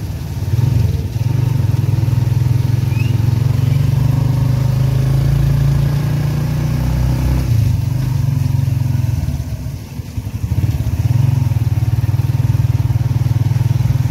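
Motorcycle engine of a passenger tricycle running steadily under way, heard from inside the sidecar. It eases off briefly about ten seconds in, then pulls again.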